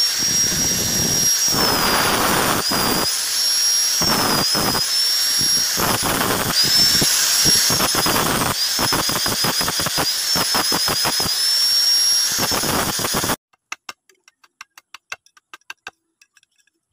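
Angle grinder with a flap disc grinding steel: a loud, steady grinding noise under a high motor whine that wavers in pitch as the disc is pressed on and eased off, with a few short breaks. It stops suddenly about 13 s in, leaving faint, quick clicking of hand work on metal.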